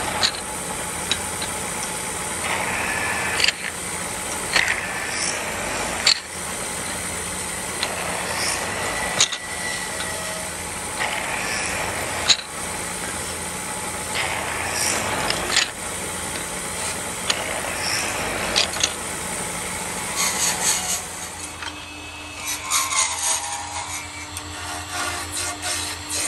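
Belt-driven wood lathe running steadily while a hand presses on the spinning wooden rod, giving a rough rubbing and scraping over the machine's hum, with sharp knocks every few seconds. About twenty seconds in the sound changes to a different lathe with a higher steady hum and a chisel scraping the turning wood.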